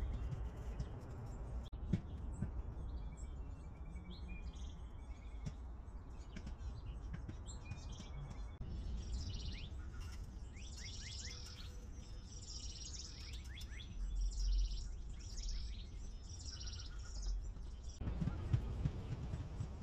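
Small birds chirping and singing, with many short high-pitched calls and quick falling notes in a busy stretch from about eight seconds in, over a low steady rumble.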